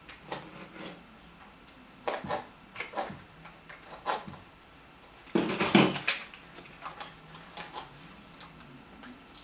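A riqq being handled while its fish-skin head is peeled off the frame: scattered clicks and knocks with light metallic clinks from its jingles. About five seconds in comes a louder jangling, rustling burst lasting about a second.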